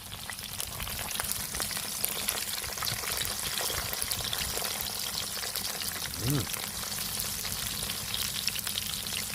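A batch of banana pieces frying in hot oil: a steady crackling sizzle, with a brief low tone about six seconds in.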